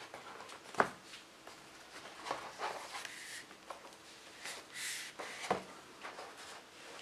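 Handling noise of a thin acrylic LED tracing light pad being lifted and set back down: a few light knocks, the sharpest about a second in and another about five and a half seconds in, with rustling and sliding in between.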